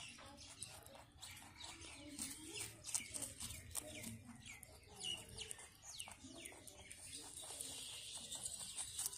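White rabbit gnawing and chewing a carrot right at a clip-on microphone: a quick, uneven run of small crunches and clicks.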